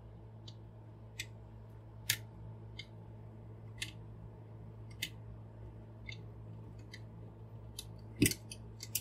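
Small screwdriver turning a tiny screw into a plastic transforming robot figure: light, irregular clicks and ticks of the metal tip and plastic parts, about one a second, with a louder knock near the end.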